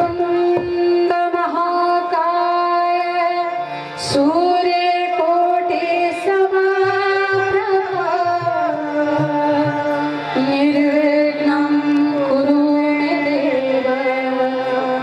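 A woman singing a devotional bhajan in long, held notes that bend and glide between pitches, with instrumental accompaniment.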